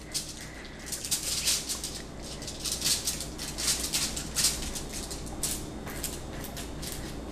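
Aluminium foil crinkling and rustling in irregular crackles as hands press and push pizza dough out flat on it.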